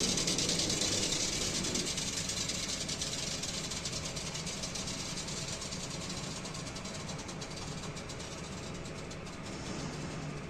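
Elevator motor and machinery running with a steady low hum and fast, regular ticking, the squeaking that the recording was made for. A strong high hiss at the start dies down over the first few seconds.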